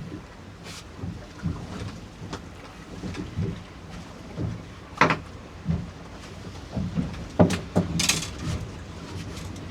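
Small boat on a choppy sea: water slapping against the hull over a low rumble of wind on the microphone, with a few sharp slaps about halfway through and near the end.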